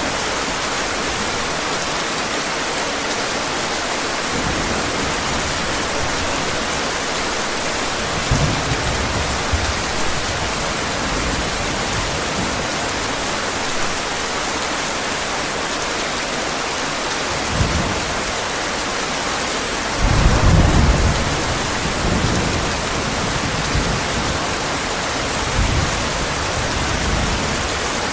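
Heavy rain falling steadily, with several low rolls of thunder; the loudest rumble comes about two-thirds of the way through.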